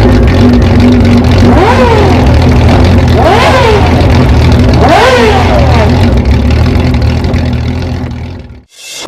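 Old motorcycle engine idling loudly and blipped three times, each rev rising and falling quickly; the sound fades out near the end.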